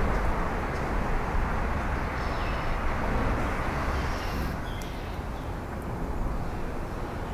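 Steady rumble of traffic on the bridge deck overhead, heard from below the bridge, with faint bird chirps now and then.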